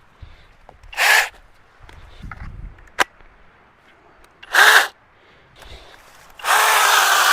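21-volt battery-powered mini chainsaw's electric motor: two short bursts on the trigger, a click between them, then from about six and a half seconds in it runs steadily at full speed.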